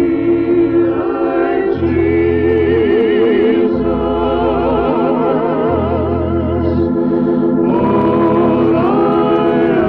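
Slow gospel music: organ chords held under singing voices with a wide vibrato, over a low bass note that changes about every second.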